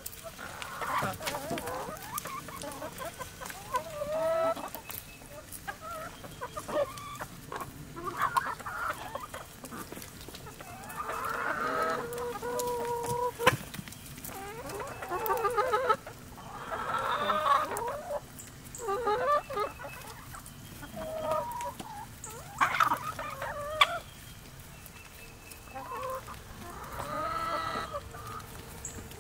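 A backyard chicken flock clucking and calling on and off throughout while feeding, with several birds overlapping. There are a few sharp taps mixed in.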